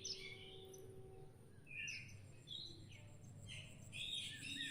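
Birds chirping in short, scattered calls, a few every second or so, over faint background noise.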